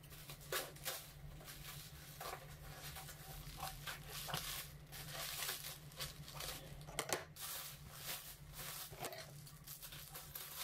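Clear plastic packaging wrap being cut with scissors and pulled apart, crinkling and tearing in irregular short rustles with scattered snips.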